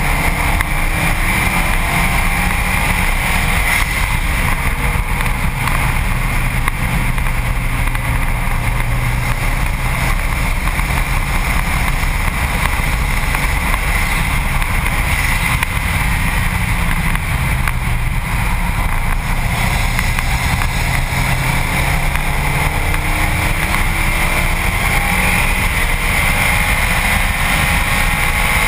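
Subaru WRX STi's turbocharged flat-four engine running hard on track, heard from a front-bumper mount under steady wind and road noise. The engine note climbs in pitch at times, most clearly near the end, as the car accelerates.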